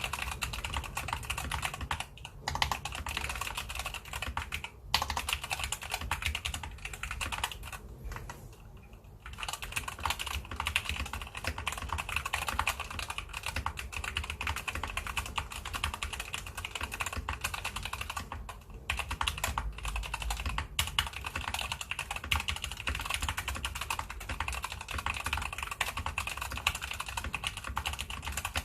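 Fast, continuous typing on an SK61 mechanical keyboard with Gateron optical brown switches: a dense run of key clicks and clacks, broken by a few short pauses.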